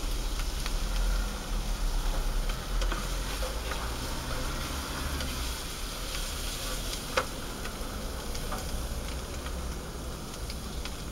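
Sliced kabanos sausage sizzling in a frying pan on a portable gas stove: a steady frying hiss with scattered clicks and scrapes, one sharper click about seven seconds in.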